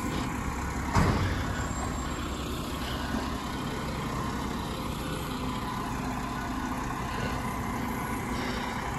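Automated side-loading garbage truck running steadily at the curb, its engine and hydraulics working the bin arm, with one sharp bang about a second in.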